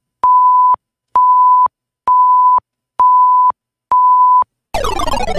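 Five-second countdown timer sound effect: five evenly spaced electronic beeps, one a second, each a steady pure tone about half a second long. The countdown ends near the end with a louder burst of falling tones.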